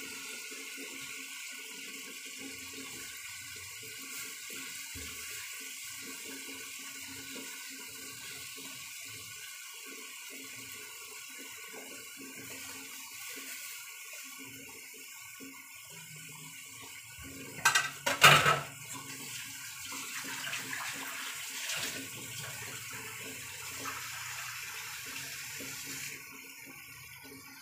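Chicken and chorizo cooking in coconut milk in a pan, a steady sizzling hiss. A couple of loud knocks come a little past halfway, and the hiss drops off near the end.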